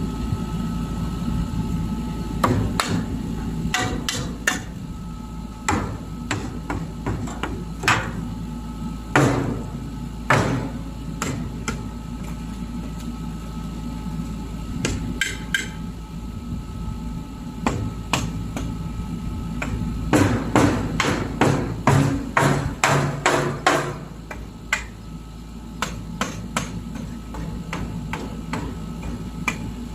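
Irregular hammer blows and knocks, with a fast run of them about two-thirds of the way through, over a steady low engine hum.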